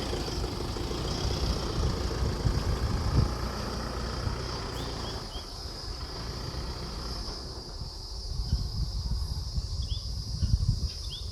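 Low, uneven rumble of a vehicle engine, under a steady high buzzing of insects, with a few short bird chirps about halfway through and near the end.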